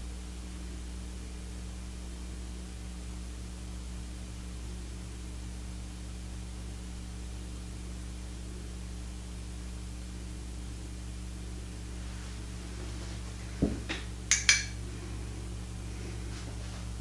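Steady low hum, broken about three-quarters of the way through by a soft knock and then two or three quick, light clinks of a hard object.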